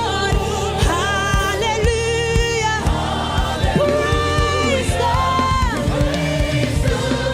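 Live gospel worship music: a lead singer holding long notes and sliding between them, with backing voices, over bass and drums.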